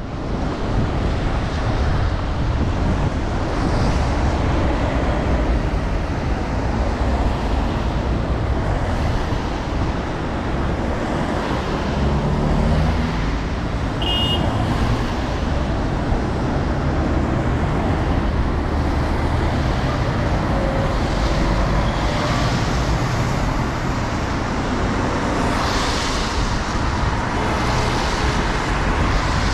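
Road traffic at a busy city intersection: cars and a bus passing, with tyres hissing on the wet road and a car passing close near the end. A brief high squeak comes about fourteen seconds in.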